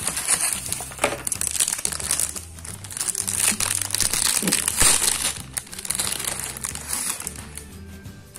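Plastic packaging crinkling and rustling in irregular bursts as a new replacement laptop battery is unwrapped, with background music underneath.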